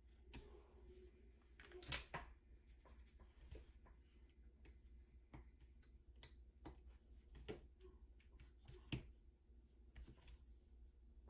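Faint, scattered clicks and taps of small metal hand tools on a circuit board, from desoldering and flush cutters trimming component leads on an old preamp card. The sharpest click comes about two seconds in, with softer ones later.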